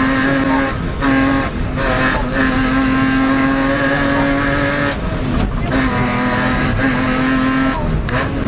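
BMW 325i E36's straight-six engine at high revs under hard throttle, heard from inside the cabin. The engine note holds at one steady pitch and drops out briefly several times as the throttle is lifted, then comes straight back.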